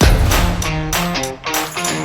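Background music: guitar-led instrumental with a steady beat of low drum hits.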